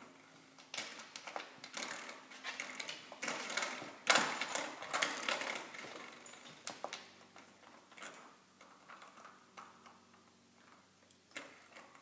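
Door spring rattling and twanging as a puppy plays with it: rapid runs of metallic clicks, loudest a few seconds in, then thinning to scattered ticks, with one more short burst near the end.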